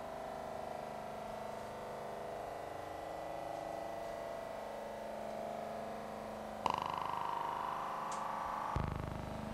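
Sustained droning tones of a soundtrack, held steady, switching abruptly about seven seconds in to a brighter, higher tone; a deep low tone joins near the end.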